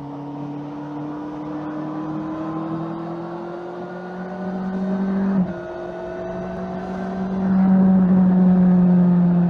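Honda CBR650R's inline-four engine on its stock exhaust, pulling in gear with the revs slowly climbing. About five and a half seconds in there is a quick, seamless gear change made by the E-Clutch, shown by a brief break in the note. It then pulls again and gets louder near the end under more throttle.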